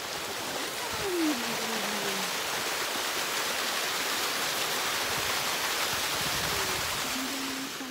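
Small waterfall: a thin stream of water splashing down a rocky slope into a shallow pool, a steady rushing splash.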